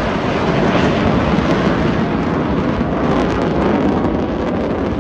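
Lockheed Martin F-35B Lightning II in slow, near-hovering vertical-lift flight, lift fan engaged and exhaust nozzle turned down, its single jet engine giving a loud, steady roar.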